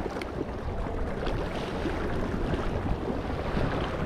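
Small waves washing and lapping against harbour rocks, a steady rush of water with some wind on the microphone.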